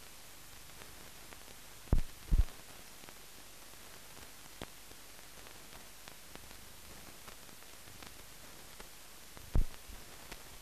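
Steady hiss of a silent film transfer with no recorded soundtrack, dotted with faint ticks. Three short low thumps stand out: two close together about two seconds in and one near the end.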